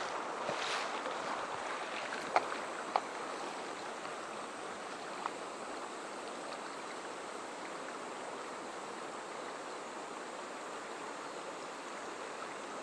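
Fast river rapids rushing steadily, with a few light ticks in the first few seconds.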